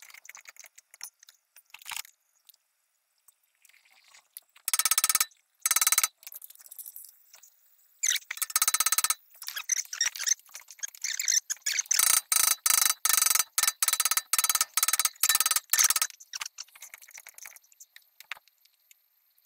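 Hammer blows on a hydraulic puller clamped to a rusted BMW rear wheel hub, ringing metallically. They come in several bursts, ending in a fast run of about ten strikes at roughly two a second. The blows shock-load the torch-heated hub, while the puller holds pressure, to break the rust bond and push the seized axle out.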